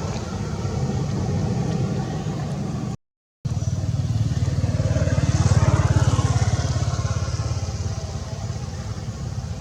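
A motor engine running steadily with a low drone, growing louder about halfway through and easing off again. The audio cuts out completely for a moment about three seconds in.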